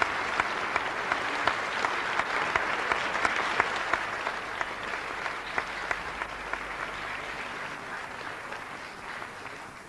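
Audience applauding, with sharp single claps standing out in the dense clapping; the applause dies away gradually over the last several seconds.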